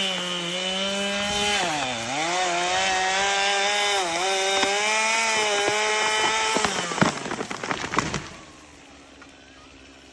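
Chainsaw running at high revs and cutting into a tree, its pitch sagging under load twice before it stops. Right after, a quick run of cracks and snaps from breaking wood.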